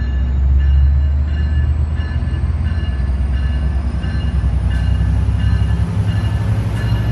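Amtrak F59PHI diesel-electric locomotive approaching at the head of a passenger train, its diesel engine giving a loud, steady low rumble. A bell rings faintly at an even beat, a little under twice a second.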